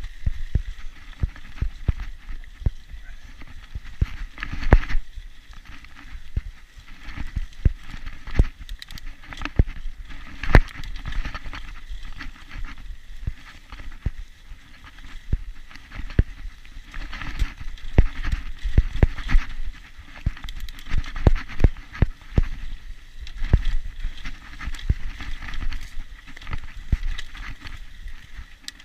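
Mountain bike ridden over a rough dirt trail: irregular knocks and rattles from the bike jolting over bumps, over a steady rushing noise.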